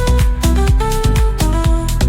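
Electronic dance music without vocals: a steady beat under sustained synth notes and a heavy bass line.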